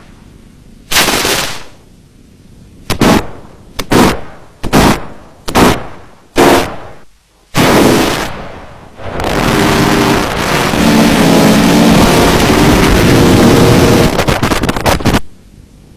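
Loud edited sound effects: a run of about seven sudden bursts, each dying away within a fraction of a second, then a continuous loud stretch of about six seconds that cuts off near the end.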